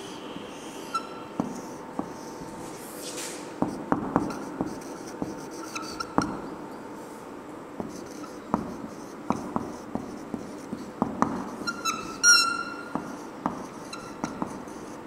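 Marker pen drawing on a whiteboard: scratchy strokes and light taps, with a few short squeaks of the tip. The loudest squeak comes about twelve seconds in.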